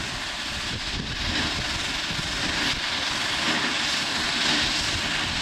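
Erie Type A steam shovel working, its steam hissing steadily over a low rumble, the hiss swelling louder through the second half.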